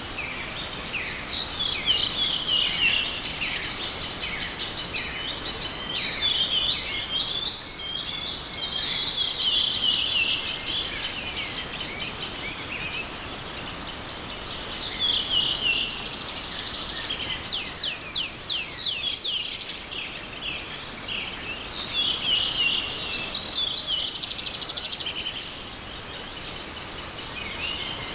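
Several songbirds singing in a spring forest, one phrase after another, including fast trills past the middle, over the steady rush of a small forest stream.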